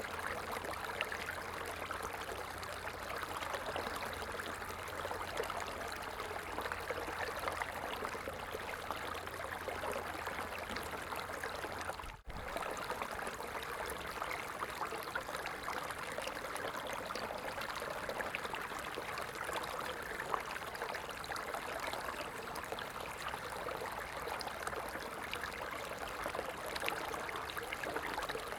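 A stream flowing and trickling steadily, an even babbling rush of water. The sound cuts out for an instant about twelve seconds in, then carries on unchanged.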